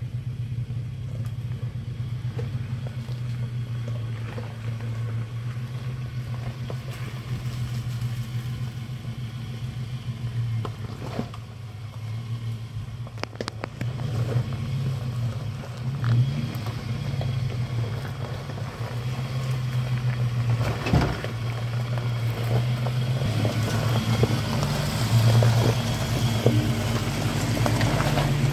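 Toyota FJ Cruiser's V6 engine running at low revs as it crawls over rock ledges, with a few sharp knocks of tyres on rock. It gets louder near the end as the truck comes close.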